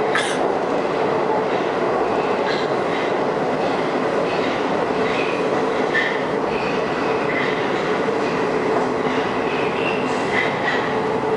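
Moscow Metro train running through a tunnel, heard from inside the passenger car: a steady rumble of wheels on rail, with a sharp click at the very start and short, high wheel squeaks here and there.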